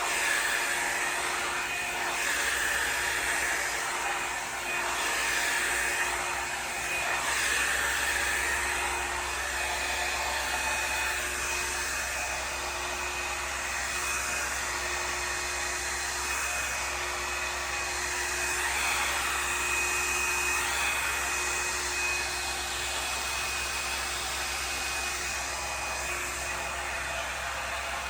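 Revlon One-Step Volumiser hot-air brush running steadily, a whooshing hot-air blow with a faint steady whine, its airflow changing a little as it is drawn through the hair.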